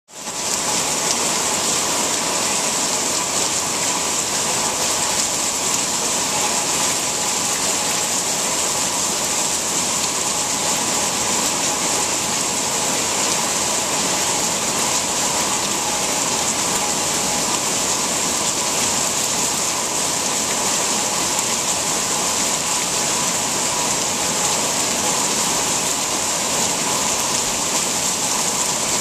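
Heavy rain pouring down into a swimming pool, a dense, steady hiss of drops striking the water.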